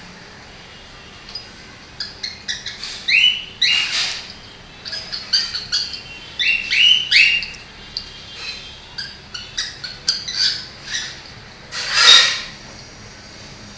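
Cockatiel calling in quick runs of short chirps and rising whistles, with a harsh squawk about four seconds in and a louder, harsher screech near the end.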